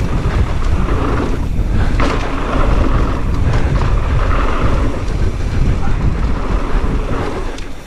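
Wind buffeting the microphone as a mountain bike rolls fast down a dirt trail, a steady rushing noise with a brief clack about two seconds in.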